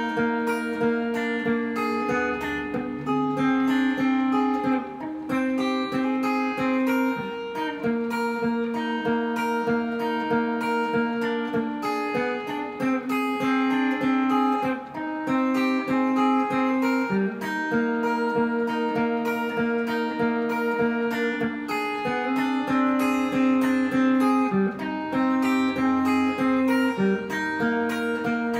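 Ibanez RG550 electric guitar played through a Peavey Renown 400 amp, picking a melodic line of held, ringing notes that change every second or so.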